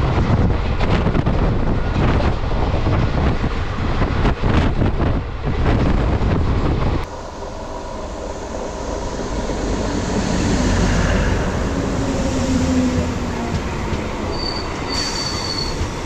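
Express passenger train running on the rails. A loud rushing clatter drops abruptly a little under halfway through to a quieter steady run with drawn-out wheel squeal, ending in a thin high squeal near the end.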